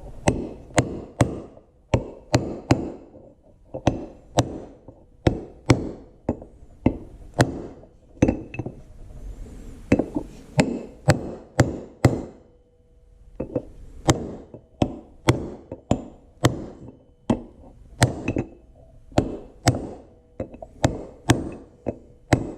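Hammer tapping a new lip seal down into a tractor's rear wheel bearing retainer: a long run of sharp strikes at about two a second, with a short pause about halfway through. The seal is a tight squeeze going in.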